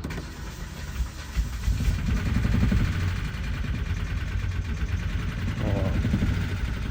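2016 Kia Carnival's 3.3-litre V6 running on a cold start, with an abnormal noise in the engine sound, which the owner takes for a fault. The engine sound grows louder about two seconds in.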